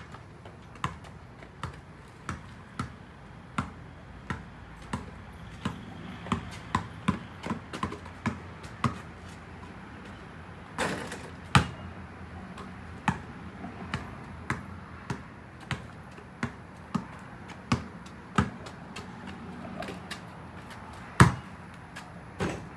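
A series of sharp, irregular taps or knocks, about one or two a second and thicker for a few seconds near the middle, over a steady low background hum.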